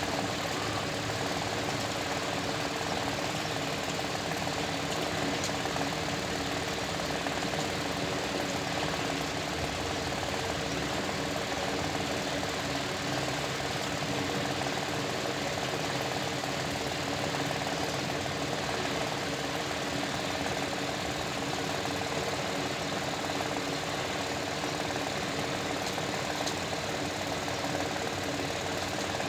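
A motor running steadily, a constant mechanical hum that does not change.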